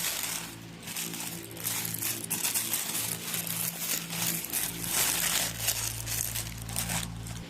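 Parcel packaging crinkling and rustling in repeated bursts as it is handled and pulled open by hand.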